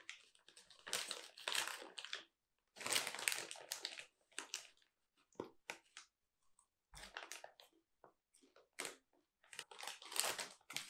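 Plastic snack bag crinkling and rustling as a hand rummages inside it for chocolate-coated popcorn, in three or so spells with small clicks between.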